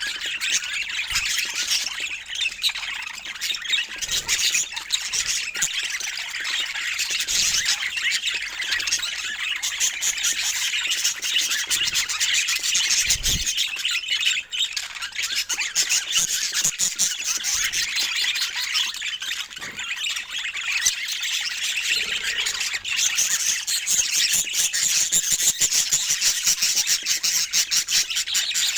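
Budgerigars chirping and chattering without a break, a dense run of rapid high chirps.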